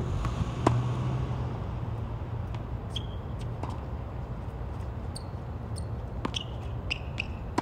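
Tennis ball being struck by rackets and bouncing on a hard court during a rally, in a series of sharp hits. The loudest comes just under a second in. Several short high squeaks come later, over a steady low hum.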